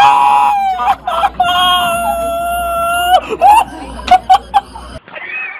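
A young child screaming in fright while a goose chases them: a short scream, then one long level-pitched scream held nearly two seconds. Several short sharp sounds follow.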